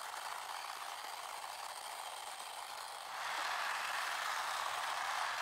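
The small battery-powered electric motor and gearbox of a 3D-printed Stomper 4x4 toy truck, whirring steadily as it runs. It gets louder about three seconds in.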